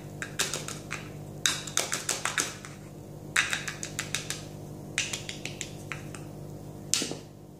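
Clusters of quick, light taps and clicks from a jar of Laura Mercier loose setting powder being opened and a make-up brush tapped against it.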